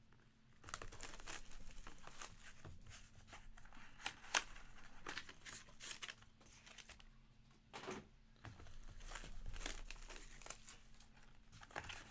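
Crinkling and tearing of trading-card packaging as boxes are opened and the card packs pulled out, an irregular run of rustles and crackles with a short lull about two-thirds of the way through.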